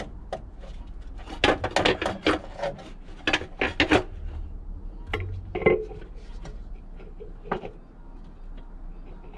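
Irregular clicks and light clattering knocks of hard objects being handled, in two quick clusters followed by a few single clicks.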